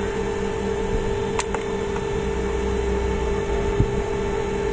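Steady hum of a small motor running, with a constant tone, a light click about a second and a half in and a low thump near the end.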